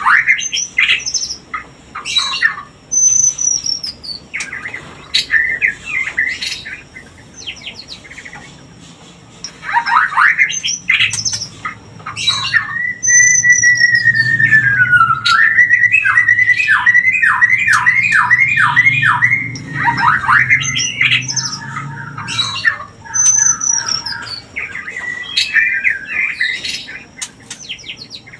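White-rumped shamas singing and calling: a varied run of clear whistles, sharp chattering notes and quick trills. Past the middle comes a long whistle that slides down and back up, then a quick series of repeated notes, about three a second.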